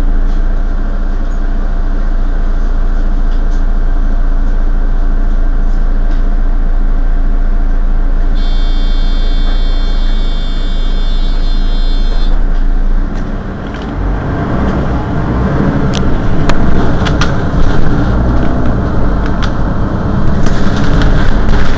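Diesel engine of a Mercedes-Benz Citaro city bus running at a standstill, heard from behind the bus as a steady hum. A high steady tone sounds for about four seconds a little before halfway. From about two-thirds of the way in, the engine sound grows louder and rougher.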